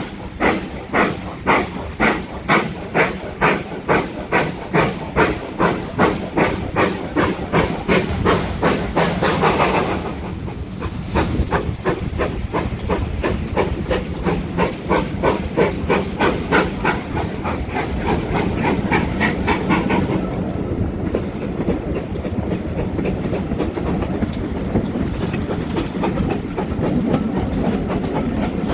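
Steam locomotive pulling a train away, its exhaust beats quickening steadily. About ten seconds in the beats grow fainter, and after about twenty seconds they give way to a steady rumble of the train rolling on the rails.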